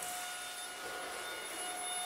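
Alfawise AR182BLDC cordless stick vacuum running: a steady, fairly quiet motor whine with a light hiss.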